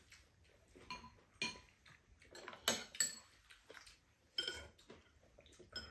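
Metal spoons and chopsticks clinking against ceramic bowls while eating: about six separate short clinks, each with a brief ring, the two sharpest close together about three seconds in.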